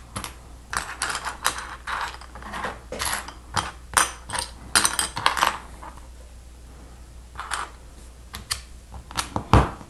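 Small plastic Lego pieces clicking and rattling as they are handled and set down on a table. The clicks come in quick clusters through the first half and grow sparser later, with a dull thump on the tabletop near the end.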